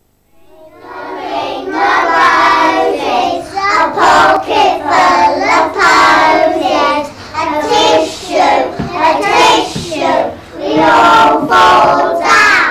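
Young children singing a song in high voices, with long held notes in sung phrases.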